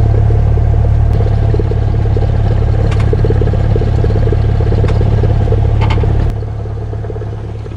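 Cessna 172S's four-cylinder Lycoming IO-360 engine and propeller running at taxi power, a steady low drone heard inside the cockpit, with a few faint clicks. About six seconds in, the engine note drops to a quieter level.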